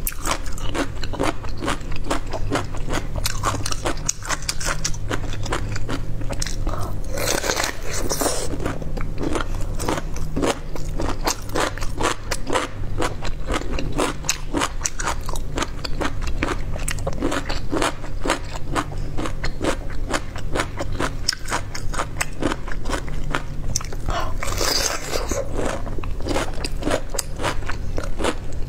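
Biting and chewing of a crisp peeled bamboo shoot: a rapid run of crunches with a couple of louder, fuller stretches about seven and twenty-four seconds in. A low steady hum underneath.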